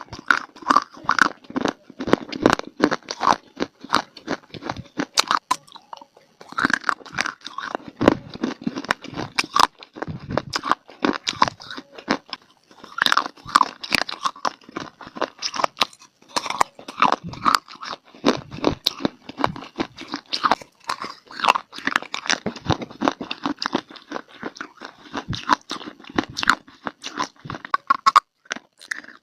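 A person biting and chewing crunchy baked clay (mitti), a quick run of sharp crunches with brief pauses about six and twelve seconds in.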